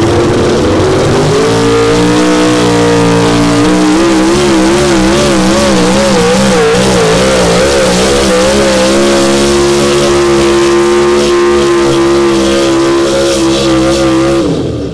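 A 4x4 pulling pickup truck's engine running loud at full throttle as it drags the pulling sled. The revs climb over the first couple of seconds, the engine note wavers rapidly up and down for several seconds midway, then holds steady before dropping away near the end as the pull finishes.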